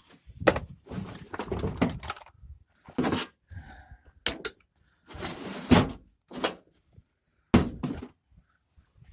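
Hand tools and metal hardware clanking and knocking as they are lifted out of a toolbox and set down, in a string of separate clatters with short pauses between.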